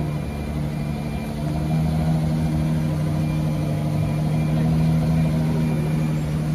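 A vehicle engine idling steadily at an unchanging pitch.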